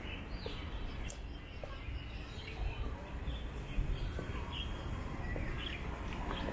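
Birds chirping now and then in short calls over a steady low background rumble of outdoor ambience.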